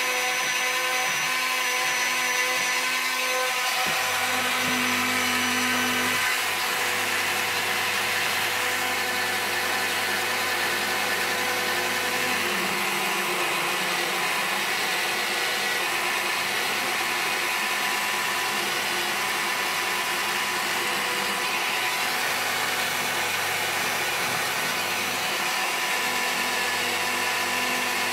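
High-speed rotary tool running steadily with a small brass wire wheel brush, scrubbing rust and grime off a cast-iron sad iron: a constant motor whine over the hiss of wire bristles on the metal.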